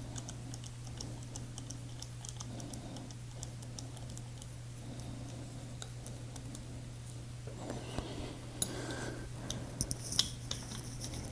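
Faint light clicks and taps of small tools and folding-knife parts being handled during disassembly, with a few sharper clicks near the end.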